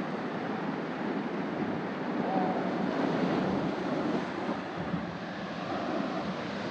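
Ocean surf washing and breaking over the rocks of a shoreline, a steady rushing noise, with wind buffeting the microphone.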